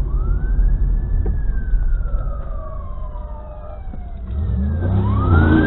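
Police car siren wailing twice, each wail rising quickly and then falling slowly, heard over the low rumble of the car's engine and tyres. A heavier engine sound swells near the end as the second wail starts.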